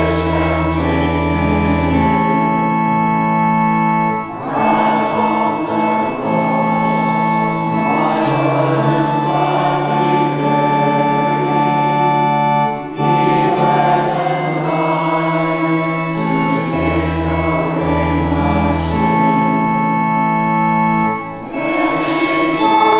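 Church organ accompanying congregational hymn singing: sustained organ chords over held bass notes, with a brief dip at the end of each sung line about every eight to nine seconds.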